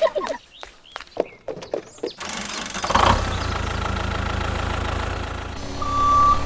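A few light clicks and knocks, then an engine starts about two to three seconds in and runs steadily. Near the end come two beeps of a vehicle's reversing alarm.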